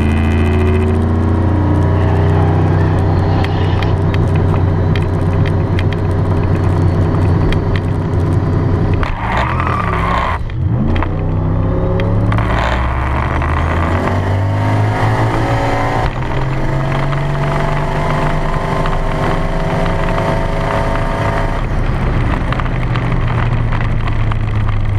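Turbocharged LSX V8 in a Mazda RX-7, heard from inside the cabin on a drag strip pass. It runs low and steady at first, then about nine seconds in it launches hard, with the tyres spinning badly off the line, and revs up through the gears.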